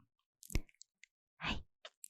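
Close-miked ASMR mouth sounds: a sharp click, a few faint ticks, and one short breath about one and a half seconds in.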